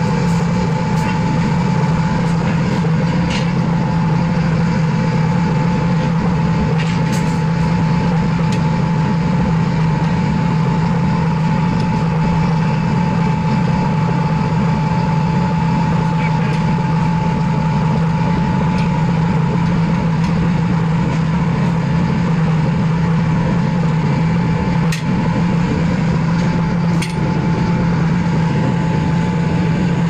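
Pit furnace for melting brass running under forced draught: its air blower gives a loud, steady drone with an even hum and a fixed higher tone. A few short clicks sound over it.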